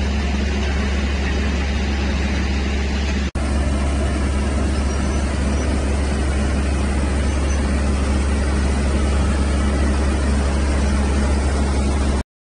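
Heavy machinery's diesel engine running steadily with a deep hum. It drops out for an instant a little over three seconds in and cuts off sharply near the end.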